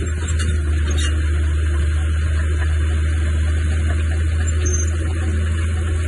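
Diesel engine of heavy earthmoving machinery running steadily, a deep unbroken drone with a constant noisy hiss over it.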